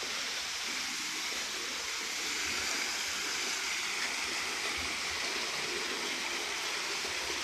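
Steady rushing and splashing of water falling over a rock cascade water feature into a swimming pool.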